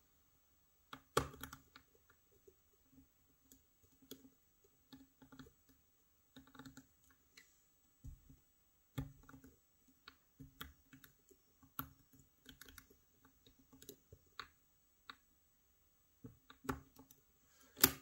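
Irregular faint clicks and light taps of a lock pick and tension tool working the sliders of a Fontaine Dynaxis, a French Bramah-style lock, as it is picked back to the closed position.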